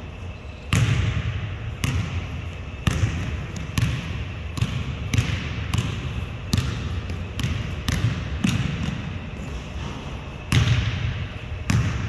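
Basketball bouncing on a hardwood gym floor as a player dribbles, in irregular thumps roughly once a second, each one echoing in the large hall.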